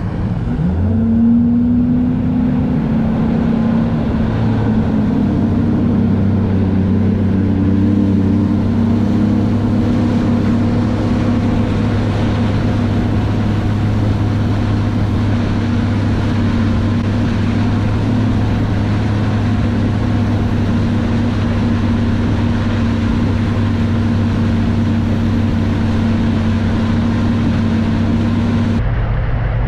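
Mercury 250 Pro XS four-stroke outboard throttling up, its note rising over the first second or two, then running steady at cruise of about 3,400–3,600 rpm with a 24-pitch three-blade Fury prop, pushing the bass boat at about 30 mph, with steady wind and water noise. The sound cuts abruptly just before the end.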